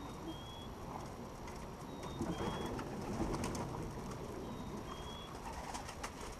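Domestic pigeons cooing, a low murmuring coo that runs on throughout. A short, thin, high chirp comes in three times.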